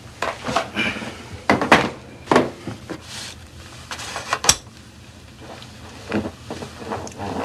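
Scattered knocks and clatters of a man settling at an office desk: a chair shifting and objects on the desktop being moved, with one sharp click a little past the middle.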